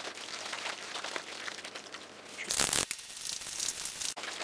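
A hand mixing a thick, wet batter of grated zucchini and flour in a plastic bowl: soft squelching and crackly rustling, with one louder rustle and bump about two and a half seconds in.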